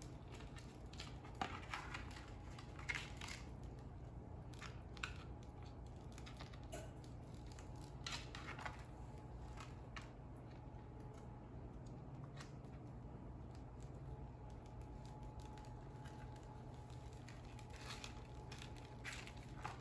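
Faint, scattered rustles and light taps from hands rolling cream-cheese-spread flour tortilla strips into a cinnamon roll, over a low steady room hum.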